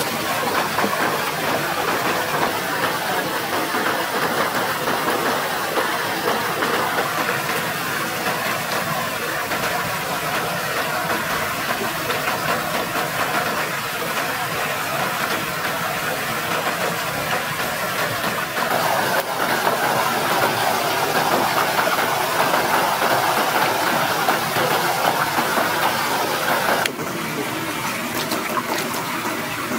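Steady rushing of a small waterfall and stream. Near the end it gives way to a quieter running stream with splashing as hands rinse a raw chicken in the water.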